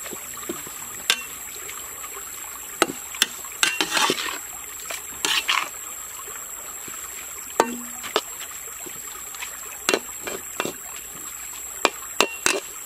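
Metal spatula scraping and clinking against a wok while stir-frying fish pieces and greens over a wood fire: irregular sharp clinks with a few longer scrapes, over a steady hiss.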